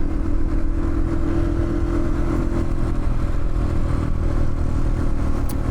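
KTM 500 EXC's single-cylinder four-stroke engine running at a steady speed while being ridden.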